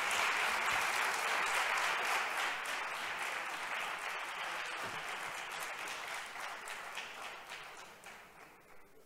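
Audience applauding, full at first, then thinning out and dying away over the last few seconds.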